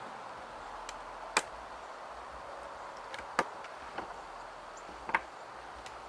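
Ratchet tie-down strap being released: three loud, sharp clicks of the metal ratchet buckle about two seconds apart, the last one doubled, with a few fainter ticks between.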